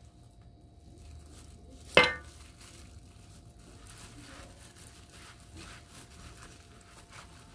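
Plastic-gloved hands patting and spreading sticky rice over a sheet of seaweed on a bamboo rolling mat: faint, repeated soft rustles and crinkles. About two seconds in comes one sharp clink with a short ring, the loudest sound.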